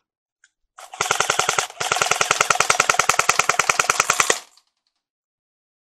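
Airsoft rifle firing on full auto: a short burst about a second in, then a longer burst of about ten shots a second lasting some two and a half seconds, which cuts off suddenly.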